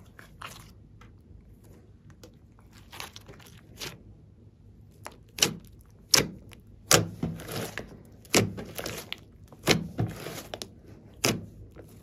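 Glossy slime with clay and glitter mixed in being pressed and stretched by hand, giving a series of sharp sticky pops and squelches. They come sparsely at first and more often and louder in the second half.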